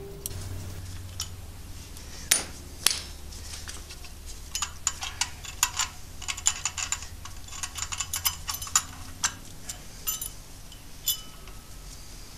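Metal-on-metal clicks and clinks of a wrench working the bolts of a flywheel being installed on a Subaru EJ22 engine: two sharp knocks a few seconds in, then a quick run of light metallic clicks for several seconds.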